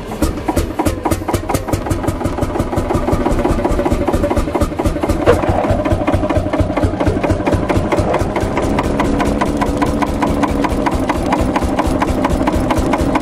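Old tractor engine running steadily with rapid, even firing beats. There is one sharp clank about five seconds in, and the running grows a little louder from about four seconds on.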